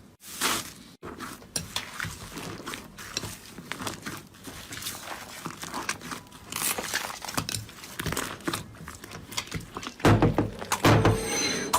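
Slime being squeezed and worked by hand, giving a dense run of small irregular crackles, pops and squelches that grow louder and fuller in the last couple of seconds.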